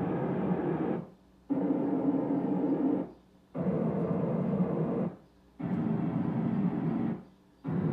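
Pioneer VSX-832 receiver's Full Auto MCACC calibration playing its noise test signal through the speakers, passing from the front left speaker to the front right and then the surround left. Each pulse of noise lasts about a second and a half, with half-second pauses between them.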